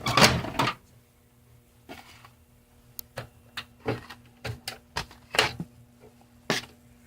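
A run of sharp clicks and knocks of things being handled, about a dozen at uneven spacing, with a louder clatter at the very start and a faint steady hum underneath.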